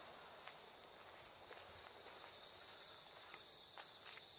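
Night insects singing in a steady, unbroken high-pitched chorus, with a few faint taps.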